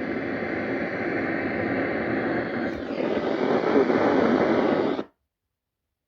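Radio static hiss from a weather radio receiver, growing louder, then cut off suddenly about five seconds in.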